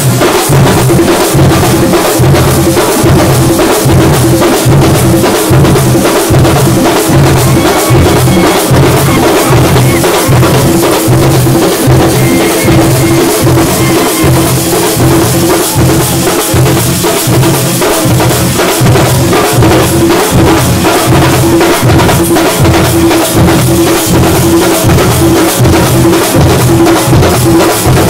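Thambolam drum ensemble playing loudly: deep drum strokes beat a steady pulse about twice a second under a constant high clatter of smaller drums, with a steady held tone underneath.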